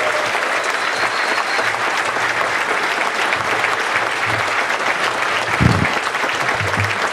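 Conference audience applauding steadily to welcome a keynote speaker to the stage. A brief low thump about five and a half seconds in.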